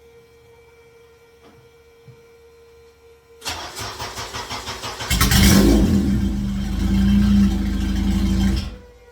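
Honda K-series engine in a swapped EG Civic cranking with a rhythmic churn for about a second and a half, then catching and running loudly for about three and a half seconds before cutting off suddenly. It now fires on a replacement engine harness after getting no spark on a cheap eBay one.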